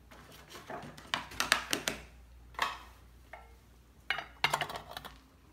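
Light metallic clinking and rattling of small objects being handled and set down, in three short spells of clinks.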